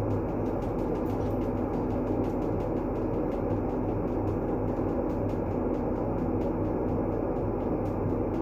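Steady, dull rumbling noise played as a calming sleep sound. It is darker than true white noise, with little hiss on top, and holds an even level throughout.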